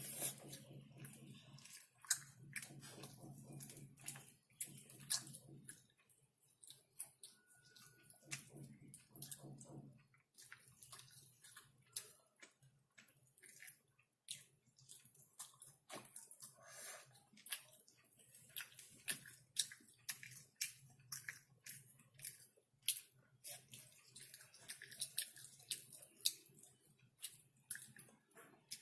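Close-miked chewing of chicken: wet mouth clicks and smacks, several a second. A muffled low chewing sound comes and goes during the first ten seconds.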